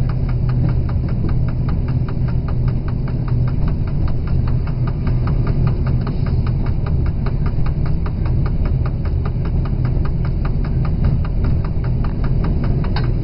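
Diesel locomotive engine running steadily, heard from inside the cab: a low throb with an even, fast ticking over it at about four or five ticks a second.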